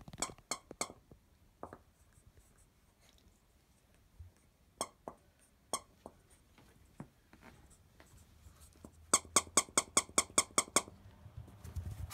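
Squeaker in a plush dog toy squeaking as a Yorkshire terrier bites down on it: a quick burst of squeaks right at the start, two single squeaks in the middle, then a fast run of about ten squeaks near the end.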